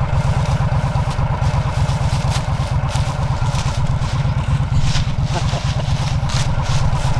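A vehicle's engine idling steadily, with scattered light clicks and rustles over it.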